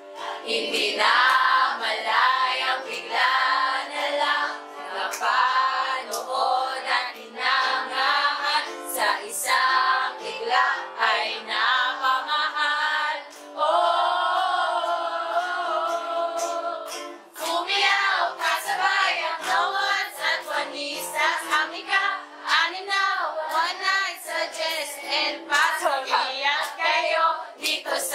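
A group of voices, mostly high, singing a song together, with one long held note about halfway through.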